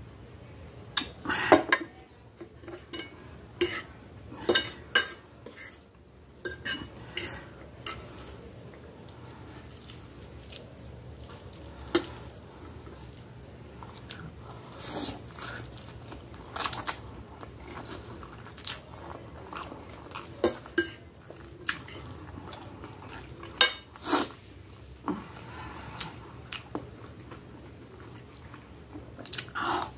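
Eating spaghetti at close range: a metal fork and spoon clicking and scraping against the plate, with chewing in between. The clicks come scattered and irregular, the loudest in the first few seconds.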